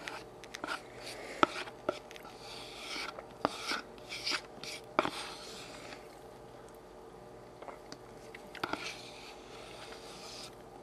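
Plastic spoon scraping out the inside of a plastic yogurt cup: sharp taps of the spoon against the cup mixed with short scraping strokes, with a quieter gap of a few seconds past the middle.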